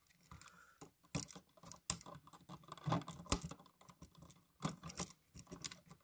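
Faint, irregular clicking and scratching of a small metal pick being worked into the push-in wire release slots on the back of an electrical outlet, with the stiff wires rubbing and tapping against it.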